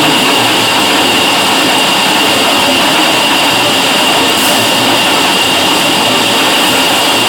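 Milling machine cutting a metal casting: a steady machining noise with a constant high-pitched whine running through it.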